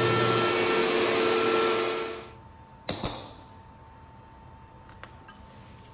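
CNC router running, its DeWalt router spindle and vacuum dust shoe going steadily over a carbon-fibre sheet, then dying away about two seconds in. Two sharp clicks follow as the cut carbon-fibre plate is handled, then a faint hum with one small tick.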